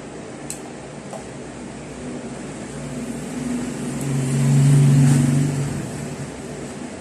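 A motor vehicle passing by, its engine sound swelling to a peak about five seconds in and then fading, over a steady background hum; two faint clicks early on.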